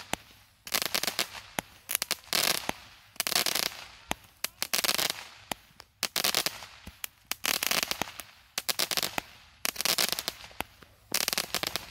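Aerial fireworks going off in quick succession: clusters of sharp bangs and pops with crackling, each lasting about a second and coming every second or two.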